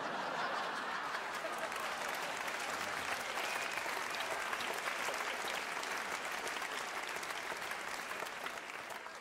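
Theatre audience applauding steadily after a punchline, the clapping fading away near the end.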